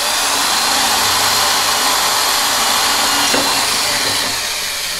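Corded electric drill running at steady speed, its bit boring a hole through 3/4-inch PVC pipe through a metal drilling guide. The drill's steady high whine eases off near the end.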